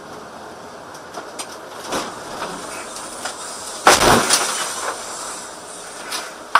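Steady vehicle cabin and road noise with scattered knocks and rattles, then a loud crash about four seconds in as the vehicle collides and the picture shakes. A sharp knock comes near the end.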